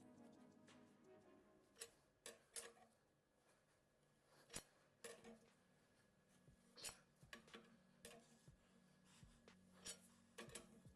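Faint, irregular clicks and light metal knocks of tools and engine parts being handled, over quiet background music.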